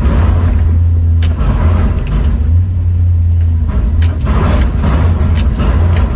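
Heavy machinery engine running with a steady low rumble, with a few sharp knocks.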